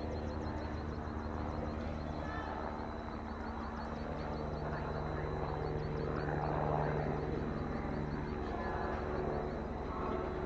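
A steady engine drone with a pitched hum, swelling slightly toward the middle.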